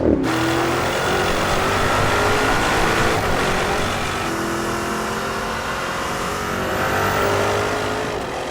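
Porsche Cayenne Turbo GT's twin-turbo 4.0-litre V8 under hard acceleration through its sport exhaust. The engine note climbs steadily, drops with an upshift about four seconds in, then climbs again.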